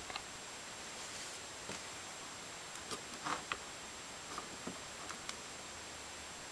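Faint clicks and rustles of a small circuit board and its jumper wires being handled on a wooden desk, with a cluster of clicks about three seconds in, over a steady background hiss.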